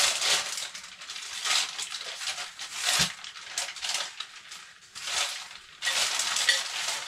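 Thin plastic carrier bag rustling and crinkling on and off as it is pulled open and handled.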